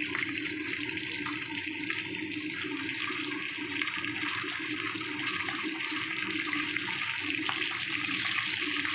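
Mackerel pieces sizzling steadily in hot oil in a wok, a continuous frying hiss. A steady low hum runs underneath.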